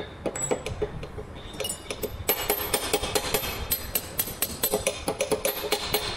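Steel hand tools clinking and tapping against a tractor's dual-clutch pressure plate as a spanner works the release-finger adjusting nuts: quick metallic clicks with a ringing edge, scattered at first and coming thick and fast from about two seconds in.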